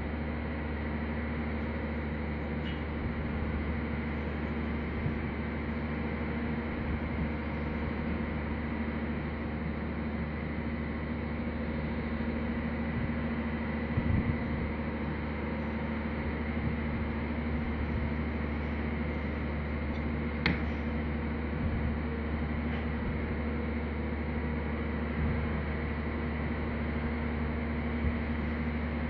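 Steady mechanical hum with a constant low drone and a faint high whine, broken by a light tap about halfway through and a sharper click a little later.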